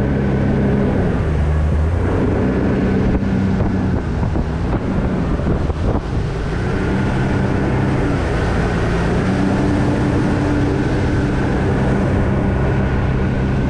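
Small aluminium fishing boat under way with its outboard motor running at a steady pitch, mixed with wind buffeting the microphone.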